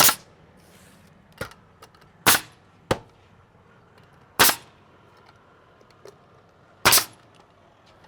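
Nail gun firing nails into a siding board: four sharp shots about two seconds apart, with a few fainter knocks between them.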